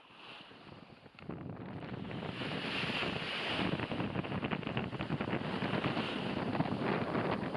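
Sea waves washing on the shore with wind buffeting the microphone, faint at first and building up about a second in.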